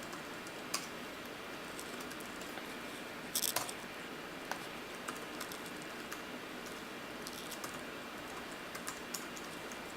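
Computer keyboard typing: a few scattered keystrokes and clicks, a short run of them about three and a half seconds in, faint over a steady background hiss.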